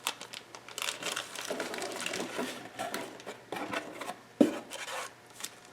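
Camcorder accessories and packaging being handled: a run of small clicks, taps and short rustles, with one sharper knock about four and a half seconds in.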